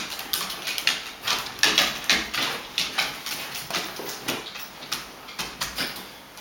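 Golden retriever and Jack Russell terrier play-fighting on a hardwood floor: irregular clicking and scrabbling of claws on the floorboards with scuffling, thinning out near the end.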